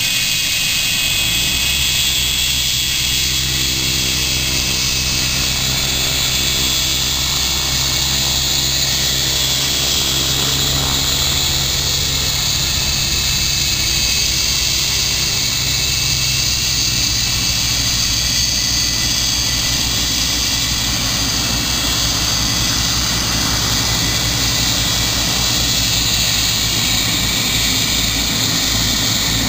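Aircraft engines running on the airfield: a steady high whine over a lower drone, with the drone easing off about halfway through and a low pulsing coming in near the end.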